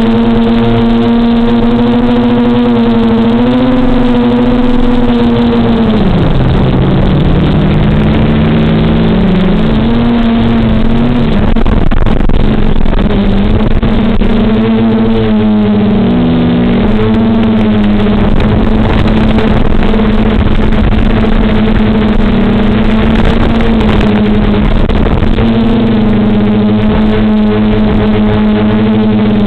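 DJI F450 quadcopter's four DJI 2212 920KV brushless motors with 9540 propellers humming in flight. The steady hum drops in pitch about six seconds in, then wavers as several tones drift apart and cross while the drone descends, and settles back to a steady pitch later on.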